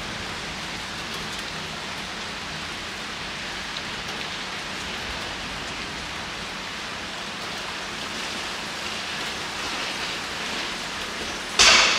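Steady rain falling, an even hiss with no pitch. Just before the end there is a short, loud rush of noise.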